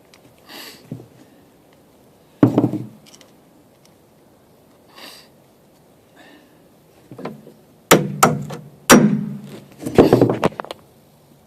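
Hammer blows on steel, driving a retaining pin into a compact track loader's bucket tooth: a single strike, then several quick blows near the end.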